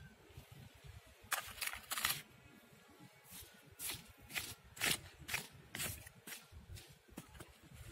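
A hand scraping and scooping loose, damp soil: a run of short gritty scrapes, about ten, starting about a second in.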